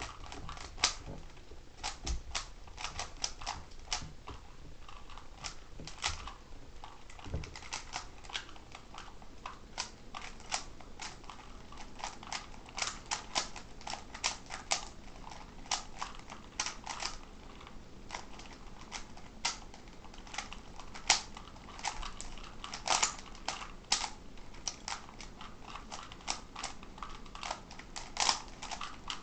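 Plastic Rubik's cubes, a 3x3 and a 2x2, being twisted rapidly during a speed-solve: a steady stream of irregular sharp clicks and clacks, coming in quick flurries.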